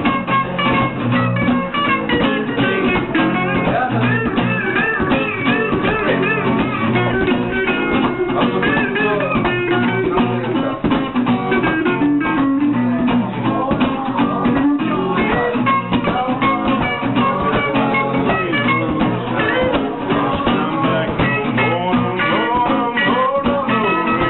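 Acoustic guitar strummed in a steady, quick rhythm, with voices over it at times.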